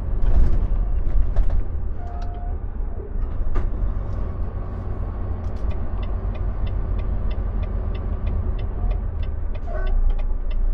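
Inside a Volvo semi-truck's cab: the diesel engine and road noise make a steady low rumble while the truck drives. About halfway through, the turn signal starts clicking at about three ticks a second as the truck nears a turn.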